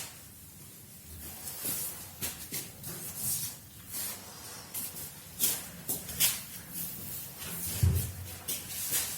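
Paint spray gun hissing in short bursts on and off. A dull thump about eight seconds in is the loudest sound.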